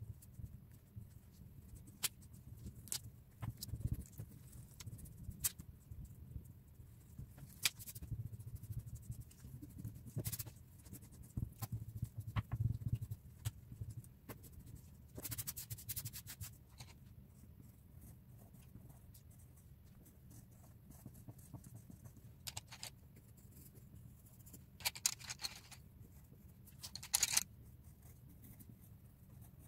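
A paper sheet being handled on a wooden desk: scattered small taps and short rustling scrapes, with a few longer, louder scrapes in the second half, the last near the end as a coloured pencil goes to work on the paper.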